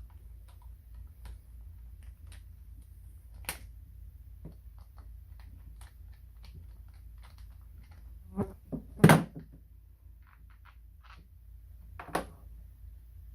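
Plastic parts of a kids' ride-on electric car being handled and fitted: scattered light clicks and taps, with a few louder knocks, the loudest a cluster about nine seconds in.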